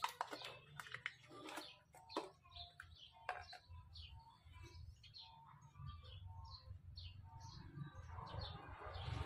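Faint knocks and clicks of a plastic engine-oil jug being lifted and its cap worked open, over small birds chirping repeatedly in the background. A hiss starts building near the end.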